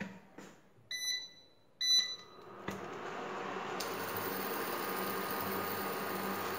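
Two short high beeps from a portable electric glass-top hob's controls as it is switched on. A little under three seconds in, its cooling fan starts and runs steadily with a low hum.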